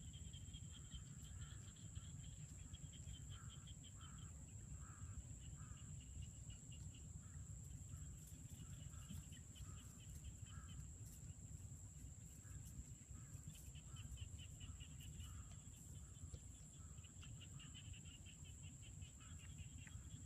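Faint outdoor ambience of insects: rapid pulsed trills in repeated short bursts over a steady high-pitched drone, with a low rumble of wind underneath.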